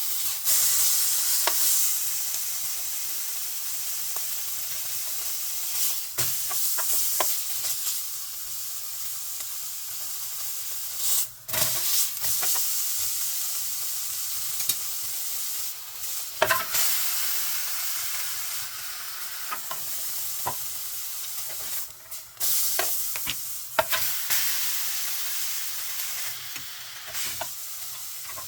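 Veal steak sizzling as it fries in a hot pan, a steady hiss broken by occasional clicks and knocks of a utensil against the pan.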